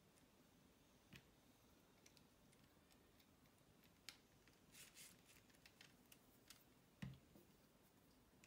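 Faint scattered clicks and light knocks of plastic LEGO Spike Prime parts being handled and fitted together, with a short cluster of clicks around five seconds in and a slightly louder knock about seven seconds in.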